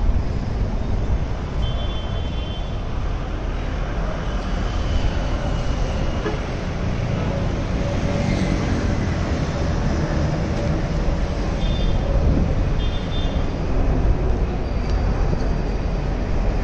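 Street traffic noise: a steady rumble of motorcycles and cars passing on the road, with a few short high-pitched beeps about two seconds in and again around twelve seconds.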